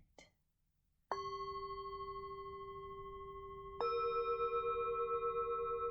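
Two hand-hammered Tibetan singing bowls struck one after the other, about a second in and again near four seconds. Each rings on with a wavering, slowly fading tone, the second higher and sounding over the first.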